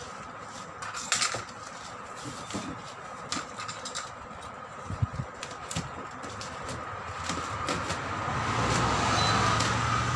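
Woven plastic sack being handled and cut open with scissors: scattered rustles and sharp clicks. A low motor hum builds in the background near the end.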